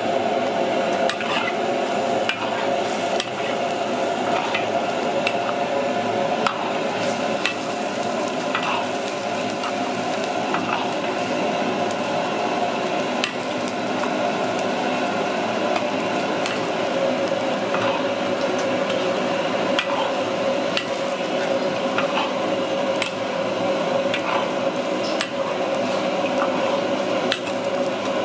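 A metal ladle stirring chunks of snake meat cooking in a hot wok, with a steady hiss from the pan and scattered clicks of the ladle against the wok.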